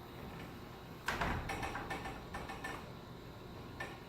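Metal clicks and a short rattle from a garage door torsion spring being wound another turn with winding bars. The rattle starts about a second in and lasts about a second and a half, and a single click follows near the end.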